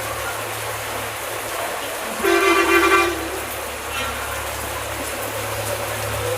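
A vehicle horn sounds once for about a second, a little over two seconds in, over the steady hiss of heavy rain and a low steady hum.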